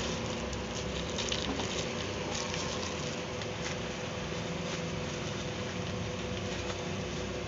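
Plastic packing wrap crinkling and crackling in irregular bursts as it is handled and cut away from a plastic tub, over a steady background hum.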